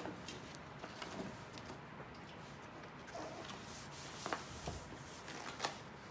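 Faint handling noise of cutout shadow puppets being moved behind a cloth screen: light rustles and taps, with sharper clicks a little after four seconds and near five and a half seconds, over a steady low hiss.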